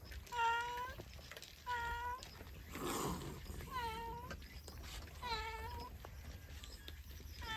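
A cat meowing over and over: five short meows at a steady pace, about one every second and a half, the first the loudest. A brief rustling noise comes about three seconds in.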